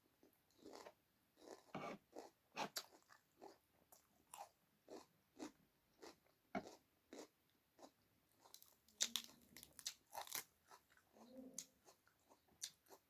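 Close-miked eating: chewing and biting food, a string of irregular wet clicks and crunches from the mouth, with a few louder crunches after about nine seconds.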